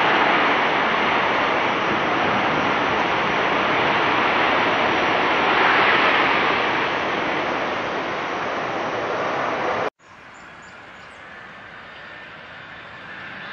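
Airbus A330 jet engines in reverse thrust during the landing rollout: a loud, steady rush that eases off slowly. About ten seconds in it cuts off abruptly to the fainter, steady hum of a Boeing 767-300ER on approach, which grows a little louder near the end.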